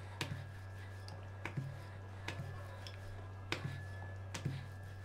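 Scattered light taps and knocks of a wooden rolling pin and hands on the counter as a stuffed potato paratha is turned, pressed and rolled out, over a steady low hum.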